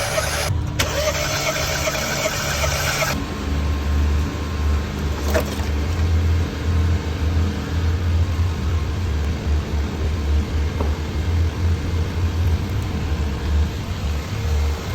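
Mini's engine idling with an uneven, lumpy low pulse: a misfire, whose cause (spark plug, coil or valve) is in question. For about the first three seconds a higher whirring noise runs over it, then stops abruptly.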